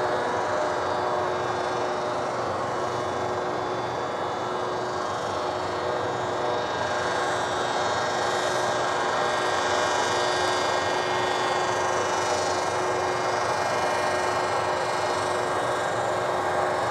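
Snow cannon running steadily: an even rush of noise with several constant humming tones in it.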